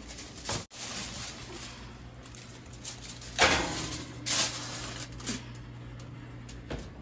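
A foil-covered baking tray slides onto a metal oven rack, with foil crinkling and scraping twice, about three and a half and four and a half seconds in, over a steady low hum.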